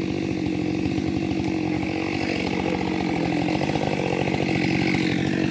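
Gas chainsaw running steadily at one constant pitch, cutting into the trunk of a freshly felled tree.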